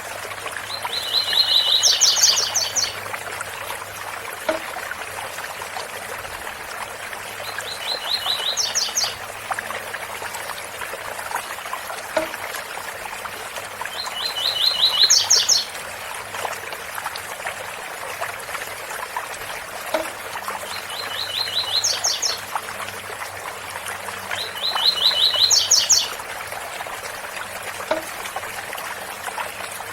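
Double-collared seedeater (coleiro) singing its 'tui tui' song five times, about every six seconds. Each phrase is a quick run of repeated notes that jumps to a higher burst at the end, over the steady rushing of a waterfall.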